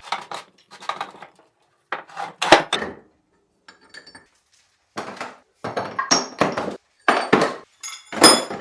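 Steel parts and tools of a milling machine's cross slide knocking and clinking together as it is taken apart, in irregular clusters of sharp clacks, a few of them ringing briefly.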